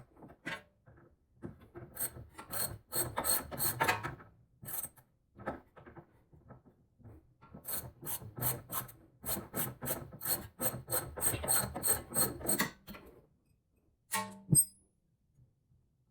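Hand ratchet wrench clicking in quick runs of about five clicks a second, as the nut on the top of a sway bar link is worked loose. A shorter run comes about two seconds in and a longer one midway, with a single sharp knock near the end.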